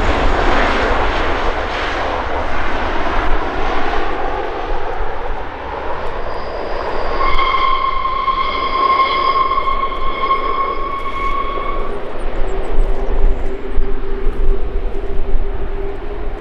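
Jet airliner's engines: a broad rushing noise as the aircraft goes by, then a steady high whine with several overtones for about five seconds in the middle, followed by a lower steady tone near the end.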